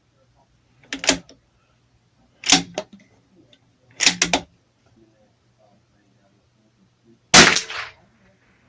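A Bergara B14R .22 rimfire bolt-action rifle being fired and cycled: four sharp bursts of reports and bolt clicks, the last the loudest with a short ringing tail.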